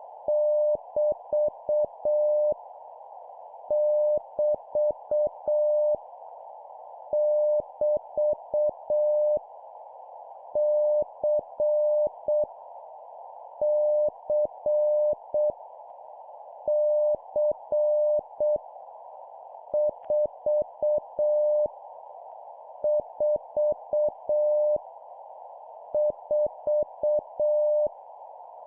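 Morse code (CW) practice tone at 7 words per minute: a single steady beep keyed into dots and dashes, sending one character at a time with a pause of about a second between groups. The characters are random letters, numbers and punctuation, each repeated three times. A steady band of hiss runs underneath.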